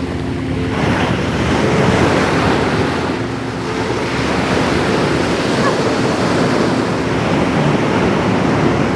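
Ocean surf breaking and washing up the beach, with wind buffeting the microphone; a wave surges in about a second in and the wash stays loud.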